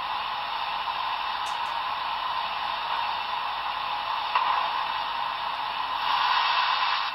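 Steady steam hiss from the sound decoder of an HO scale Union Pacific Big Boy 4014 model steam locomotive, played through its small on-board speaker as it runs, growing a little louder near the end.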